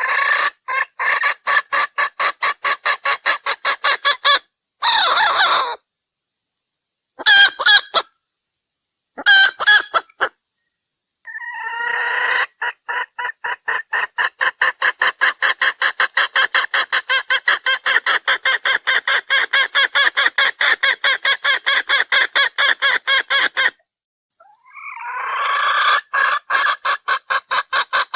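Red junglefowl hen from Sumatra giving her lure call: rapid, evenly repeated clucking notes, about three to four a second. The notes come in runs broken by several short pauses, with one long unbroken run through the middle. This is the hen call used to draw in wild males.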